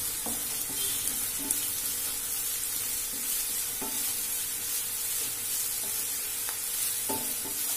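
Chopped onion sizzling as it is sautéed in hot oil in a nonstick pan, stirred with a wooden spatula that scrapes and taps against the pan a few times.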